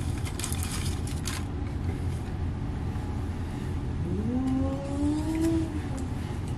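A steady low rumble, like a vehicle running. About four seconds in, a pitched tone rises and holds for roughly two seconds.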